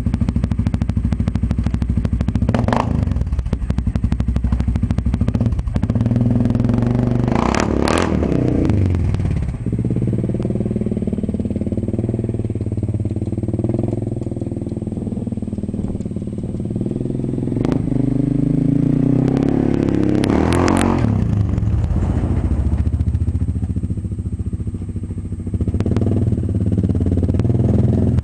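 Suzuki KingQuad 750 ATV's single-cylinder four-stroke engine through an LRD aftermarket exhaust, idling and revved: a short blip about 3 s in, then bigger revs that climb and fall back about 8 s and 20 s in.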